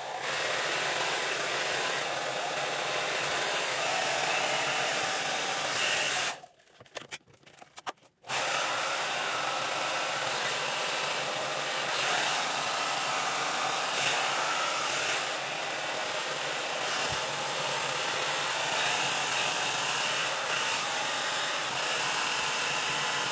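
Ionic hair dryer blowing air in a steady, loud rush. About six seconds in it stops for roughly two seconds, then starts again and runs on.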